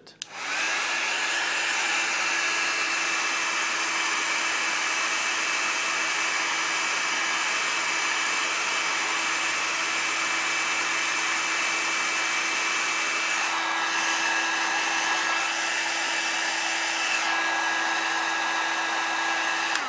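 Electric hot-air blower running steadily, a whooshing rush of air with a steady fan whine, warming the phone's glass to soften the digitizer adhesive. The tone shifts slightly about two-thirds of the way through.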